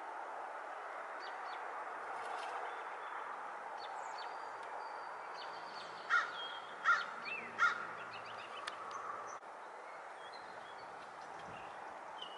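A crow calling three times, short harsh caws a little under a second apart about halfway through, over a steady background hiss, with a few faint high chirps from small birds.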